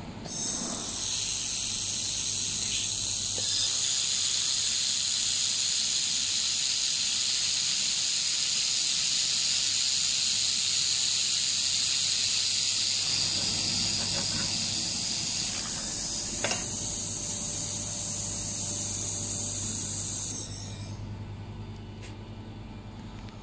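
Handheld 2000 W laser welding gun at work on sheet metal, with shielding gas hissing loudly and steadily from the nozzle. The hiss stops about twenty seconds in, leaving a low hum and a light clink or two.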